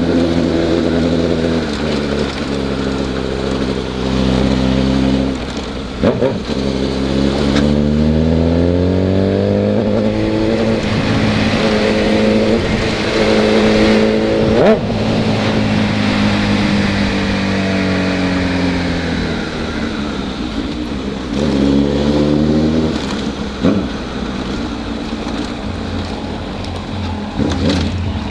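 Honda CB1000 motorcycle's inline-four engine under way, its pitch climbing and dropping several times as the rider accelerates and changes gear.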